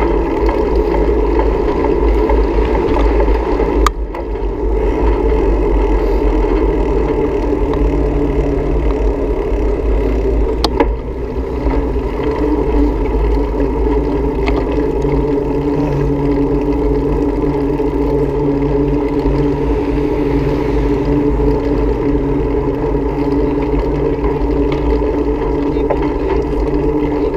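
A motor running at a steady pitch as the vehicle carrying the camera cruises along a road, over a low rumble. Two sharp knocks break in, about four seconds in and about eleven seconds in.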